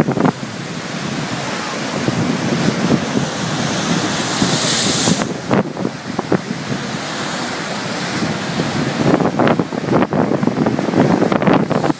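Large Lake Michigan storm waves breaking and washing, with strong gusting wind buffeting the microphone. A loud hissing surge of surf comes about four to five seconds in.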